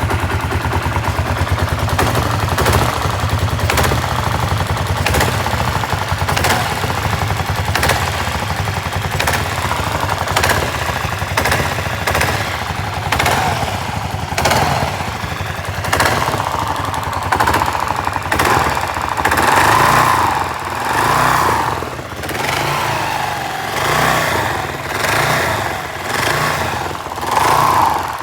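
Kawasaki KLR650 single-cylinder four-stroke engine running, with a sharp knock repeating about every second and a half. About halfway through the throttle is blipped again and again, the engine rising and falling in rhythm. The owner is unsure whether the knock is normal.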